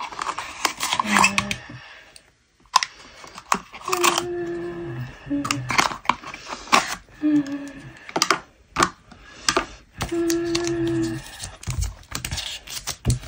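Thin cardboard box and plastic tray being handled and opened by hand: a string of sharp clicks, taps and scrapes of card and plastic, with short pauses. A few short held pitched notes sound alongside, about four seconds in and again about ten seconds in.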